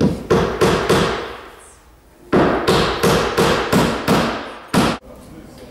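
Hammering on wood: a quick run of four blows, a short pause, then about eight more blows at three to four a second, each with a brief ring.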